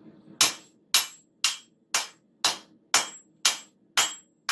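Hand hammer striking a hot railroad spike on an anvil: nine steady blows, about two a second, each with a short metallic ring.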